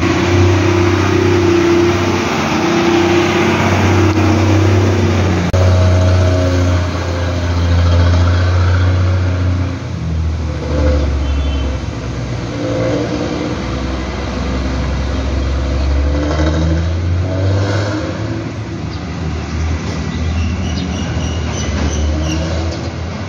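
Nissan Diesel CB87L bus's diesel engine running under way, its "ngorok" (snoring) exhaust giving a deep, loud note, heard from the rear seat inside the cabin. The engine note drops about ten seconds in, then rises again a few seconds later.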